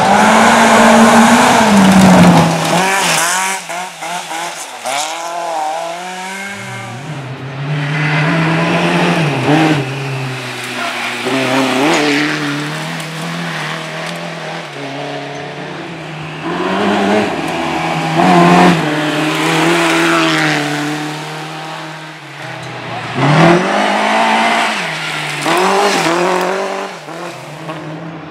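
Rally car engine revving hard, its pitch climbing and falling again and again with gear changes and lifts off the throttle. Loudest in the first three seconds, then continuing somewhat further off.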